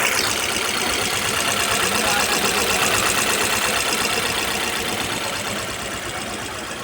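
Freshly overhauled Jeep Compass petrol engine idling steadily, getting a little quieter over the last couple of seconds.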